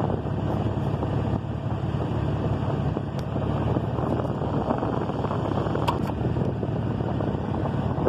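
Ford van's engine running, a steady drone heard from underneath the vehicle, with a couple of light clicks in the middle.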